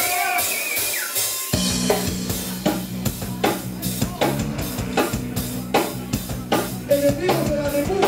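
Live rock band kicking into a song: after a held high note, drum kit hits and low sustained guitar and bass notes come in together about a second and a half in, then carry on in a steady beat.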